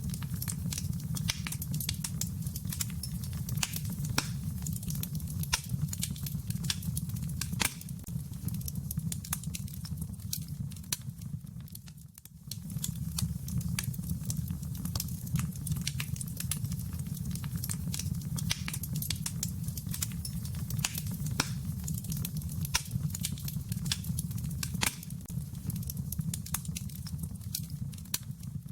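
Wood fire crackling in a fireplace: a steady low rumble with frequent sharp pops and snaps, dipping briefly about twelve seconds in.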